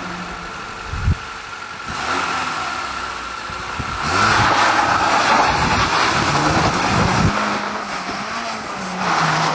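Lada 2107's 1.5-litre four-cylinder engine held at revs on the start line, with one sharp thump about a second in. From about four seconds in the car launches hard on loose gravel: the engine revs up under a loud rush of spinning tyres and spraying gravel.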